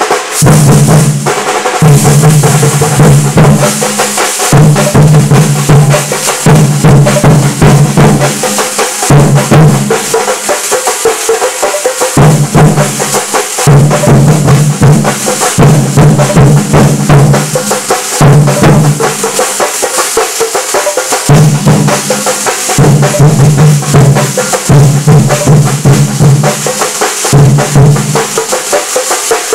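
Thambolam percussion band playing loud and without a break: massed snare and bass drums beaten in fast rolls, deep drum notes coming in repeated phrases, with hand cymbals clashing over them.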